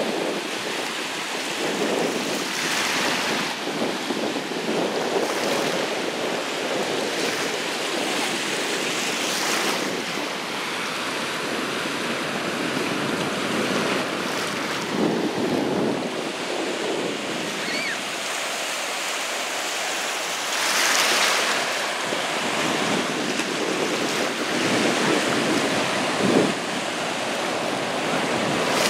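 Ocean surf washing through the shallows, with wind buffeting the microphone; the wash swells louder a few times.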